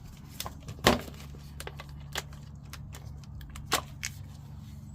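Scattered metallic clicks and knocks of hand tools working on a removed fuel tank's cover bolts, the loudest about a second in, over a steady low hum.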